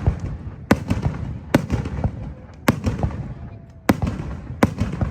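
Fireworks bursting overhead: five sharp bangs about a second apart, with crackling and a low rumble between them.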